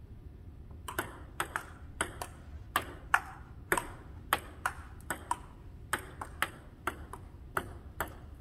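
Table tennis rally: a ping-pong ball clicking off the paddles and bouncing on the table, sharp ticks about two to three a second, often in quick pairs of hit and bounce, starting about a second in.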